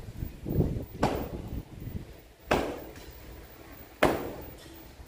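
A series of sharp knocks or thumps, about one every second and a half, over a low rumble.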